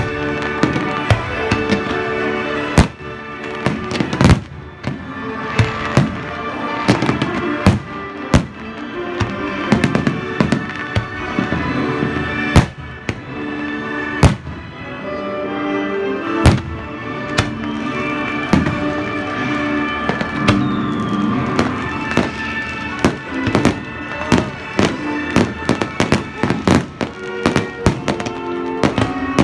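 Aerial fireworks bursting: many sharp bangs at irregular intervals, coming thick and fast near the end, with music playing throughout.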